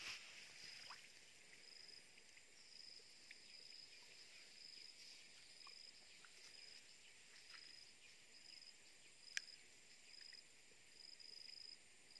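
Faint insect chirping: a short high note repeating about once a second, over a quiet outdoor background with a few small clicks and water ticks. A light splash at the very start and a sharp click about nine seconds in.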